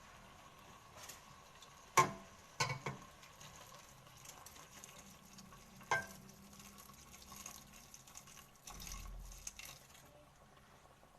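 Boiling water being poured into a pot of softened onions, against a faint sizzle, with a few sharp clinks of pot and utensils, the loudest about two seconds in.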